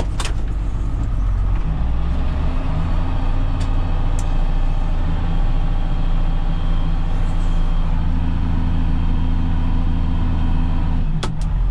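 John Deere tractor's diesel engine running steadily under heavy load, climbing a steep slope with a lime spreader.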